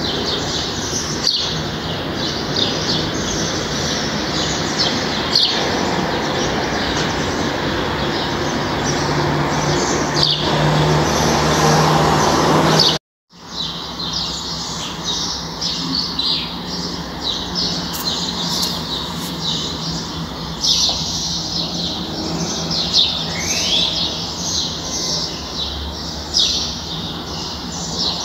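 Many small birds chirping busily in quick, short notes over a steady background hum, with one rising whistle late on. The sound cuts out for a moment about halfway through.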